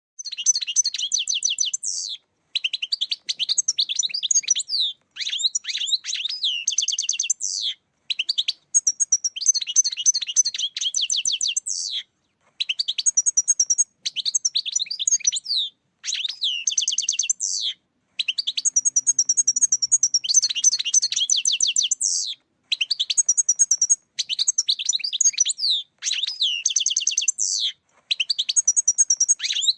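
European goldfinch song: rapid twittering, trilling phrases in runs of two to four seconds with short pauses between them.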